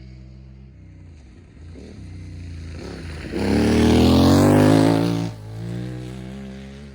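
CFMOTO 450MT parallel-twin motorcycle with a slip-on exhaust accelerating past in second gear. The engine note builds as it comes closer, is loudest about three and a half to five seconds in, then drops off quickly as the bike moves away, and cuts off sharply near the end.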